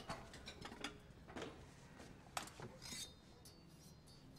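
Faint, scattered clinks and knocks of dishes and utensils being handled in a quiet kitchen, a few light strikes about a second apart.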